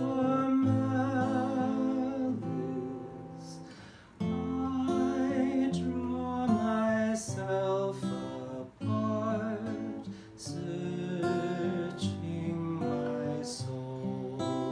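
A man singing a slow hymn melody, accompanying himself on an acoustic guitar. The music dips briefly about four seconds in, at a break between phrases.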